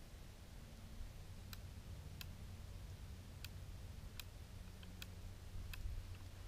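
Faint, sharp clicks at irregular intervals, a little more than one a second, over a low steady hum.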